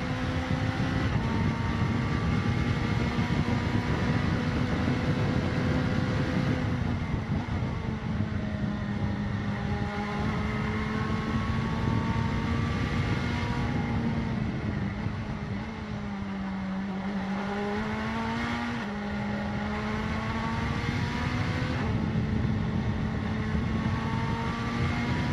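Mazda prototype race car's turbocharged four-cylinder engine heard from inside the cockpit at speed, with wind and road noise. The pitch holds high, sinks for a few seconds about two-thirds of the way through, then jumps back up as the car shifts and accelerates.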